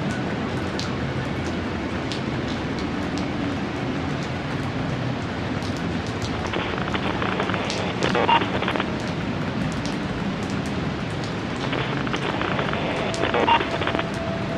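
Steady rain falling, with scattered sharp drop strikes. Twice a few seconds of brighter noise swell in, each ending in a short louder knock.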